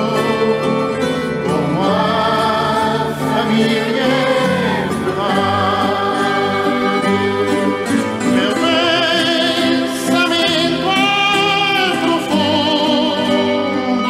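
Background music with a singing voice holding long notes with vibrato.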